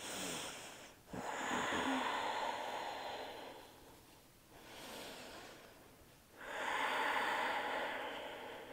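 A woman's slow, deep breathing: four long audible breaths of one to three seconds each, the second and fourth louder, taken while holding a yoga shoulder stretch.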